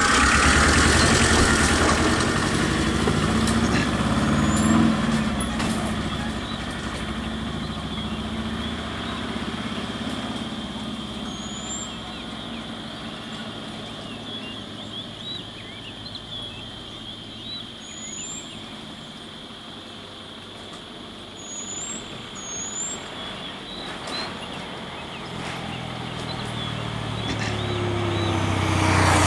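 Diesel engines of a truck and a bus running on the road, loud at first, dying down through the middle and building again near the end as a bus draws up close. Short high chirps sound now and then over a steady high-pitched drone.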